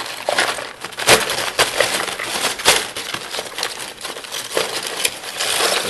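Ice and rock salt clattering and crunching as hands dig a bottle out of an ice-and-salt bath: a run of irregular knocks and rattles, with two sharper knocks about a second in and near the middle.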